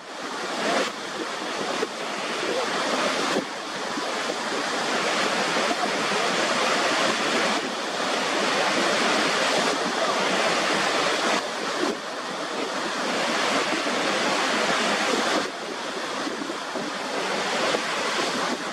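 Steady rushing water noise with no bass, swelling and briefly dropping away every few seconds.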